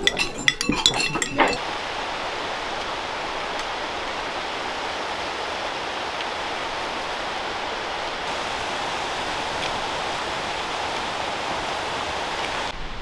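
Cutlery and dishes clinking for about a second and a half, then the steady, even rush of a mountain stream.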